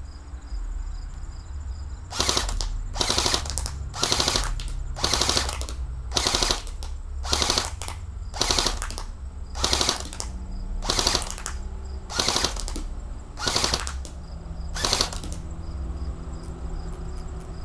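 Airsoft G3 rifle firing about a dozen short bursts of rapid shots, roughly one burst a second, stopping about 15 seconds in.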